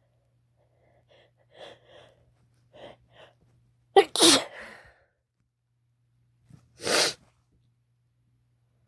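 A person sneezing strong, wet sneezes brought on by chhinkni herbal snuff. A few quick catching breaths lead to a loud sneeze about four seconds in, and another sneeze follows about three seconds later.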